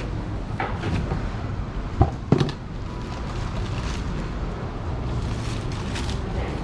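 Two sharp knocks on a wooden cutting board about two seconds in, as the knife and pineapple are set down, over a steady low background rumble; a few faint crinkles of a thin plastic bag follow.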